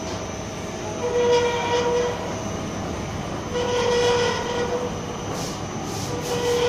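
Dumpling and wonton wrapper machine running, a steady mechanical clatter with a pitched squeal that comes back about every two and a half seconds, each time lasting about a second.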